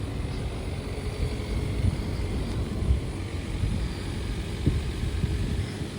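Steady low rumble of a car on the move, with a few faint low knocks.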